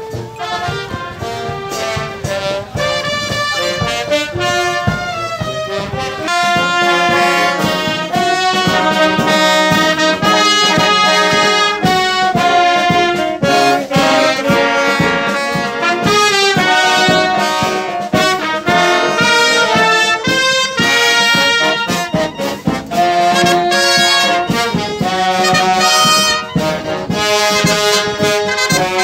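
Military wind band of saxophones, clarinets, trombones and brass horns playing a tune. It is somewhat quieter at first and fuller from about six seconds in.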